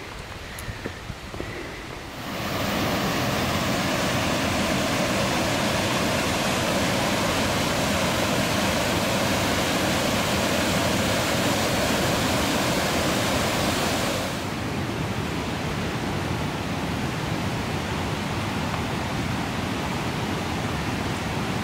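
Mountain creek cascading through a rocky gorge: a steady rush of white water that comes in loudly about two seconds in, then drops a little and loses some of its hiss about fourteen seconds in. The first two seconds are quieter, with a few light clicks.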